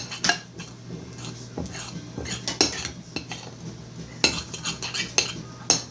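A utensil stirring slime in a bowl, clicking and scraping against the sides at irregular intervals as laundry detergent activator is mixed into the glue and shaving-foam mixture.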